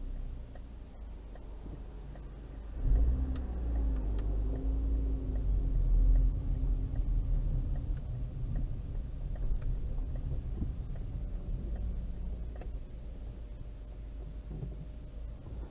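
Car engine heard from inside the cabin: idling, then pulling away about three seconds in with the engine note rising, then easing off as the car slows.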